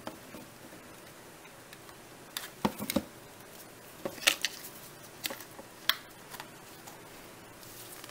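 Scattered light clicks and taps of small plastic deli cups and lids handled by gloved hands, a few in quick clusters.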